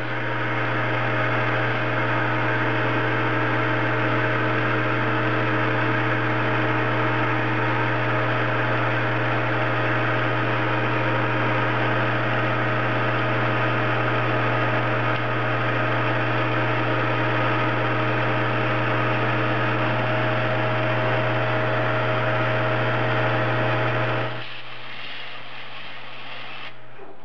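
A metal lathe taking a roughing cut on a 416 stainless steel bar: a steady motor and spindle hum, with the hiss of the turning tool cutting. About 24 seconds in, the cutting hiss falls away and the sound drops, leaving the lathe running.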